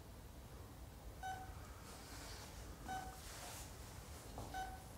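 Hospital bedside heart monitor beeping steadily: three short beeps at one pitch, about 1.6 seconds apart, each beep marking a heartbeat.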